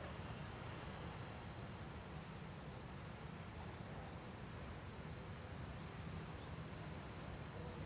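Steady outdoor ambience in an open field: an even hiss over a low rumble, with no distinct events.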